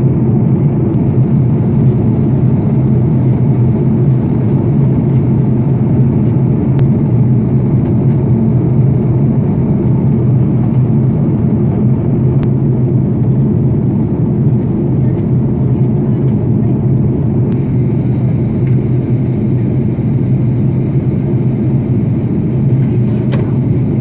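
Airliner cabin noise on final approach: a steady, loud drone of engines and rushing air with a few constant low hum tones, unchanging throughout.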